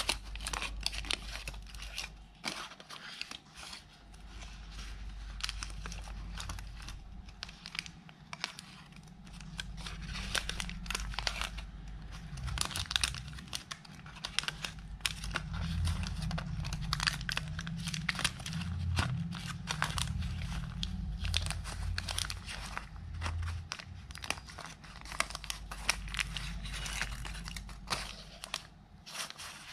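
Aluminium foil and paper wrapper of a Dairy Milk chocolate bar crinkling and tearing as it is peeled open and scrunched by hand, a dense, irregular run of crackles and rustles.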